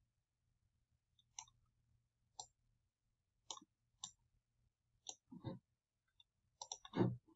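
Computer mouse clicking: single sharp clicks about once a second. Heavier, duller knocks come about five seconds in and near the end, and the last of them is the loudest.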